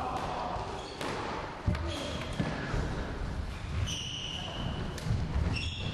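Football being kicked and thudding off the walls and wooden floor of an enclosed indoor court, with short high squeaks of shoes on the floor. The loudest thud comes about a second and a half in.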